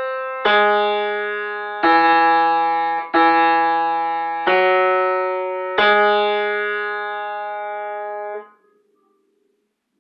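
Single notes played one after another on a keyboard, each struck and then dying away. A new note comes about every 1.3 seconds, and the last is held longer before it is released about eight and a half seconds in. This is an ear-training example whose answer is a descending major third.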